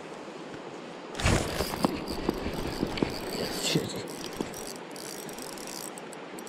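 Shimano Sephia Ci4+ spinning reel being worked, with a sudden rattle about a second in and then irregular mechanical clicks for a couple of seconds, over the steady rush of the river.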